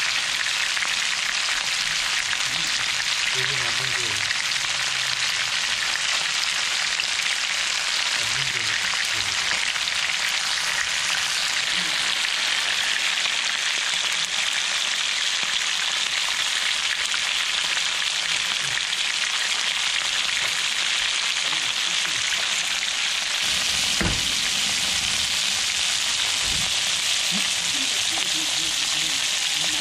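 Skin-on rockfish fillets pan-frying in oil in a nonstick frying pan, a steady sizzling hiss throughout.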